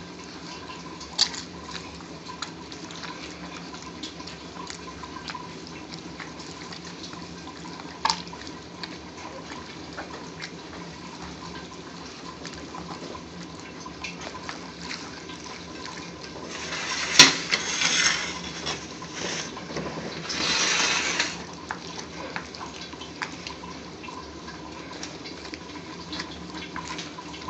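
Wet squelching of grilled tomatoes, onion and dry chillies being crushed and mixed by a gloved hand in a bowl. Two louder spells of squishing come past the middle, the first starting with a sharp click, and a few single clicks come earlier.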